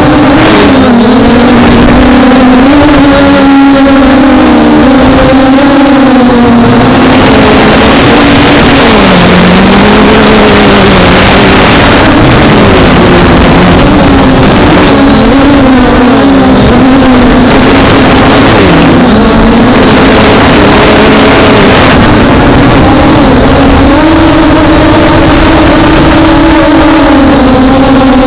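MJX Bugs 5W quadcopter's brushless motors and propellers buzzing, the pitch wavering up and down as the throttle corrects, with heavy wind noise over it.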